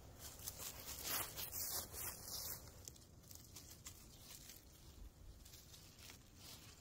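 Footsteps crunching through dry fallen leaves and grass, a few rustling steps in the first two or three seconds, then fainter rustling close to the ground.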